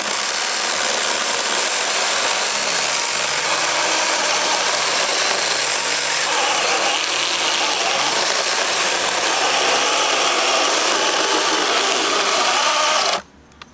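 Kebtek 16.8V cordless handheld mini chainsaw running at full speed, its chain cutting steadily through a fallen log. The motor stops abruptly near the end.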